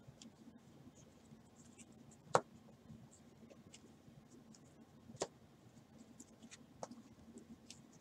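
Trading cards being handled and set down on a table: faint sliding and rustling, with a sharp click about two and a half seconds in and lighter clicks near five and seven seconds in.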